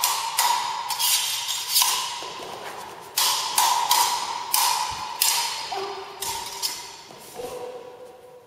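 Thin sword blades clashing in a stage sword fight. There is a rapid series of metallic strikes, roughly two a second, each with a short ring. A brief pause comes about two seconds in, and the strikes grow fainter toward the end.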